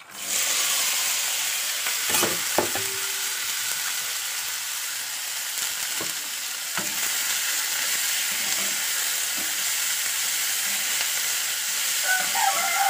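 Fiddlehead fern greens (dhekia) dropped into hot oil in a metal wok start sizzling at once and keep frying with a steady hiss. A few clinks of a spatula stirring come through early and again about six to seven seconds in.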